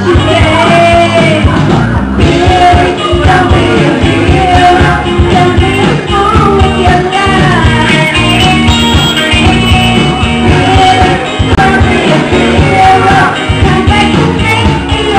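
A karaoke singer singing over a loud backing track through the pub's sound system.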